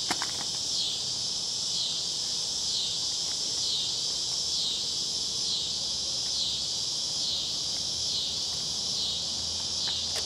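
Insect chorus: a loud, high, steady buzz that sweeps down in pitch in regular waves about once a second. A couple of faint clicks just at the start.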